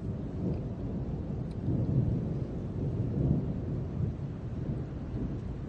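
Thunder rumbling, swelling about two seconds in and again about a second later.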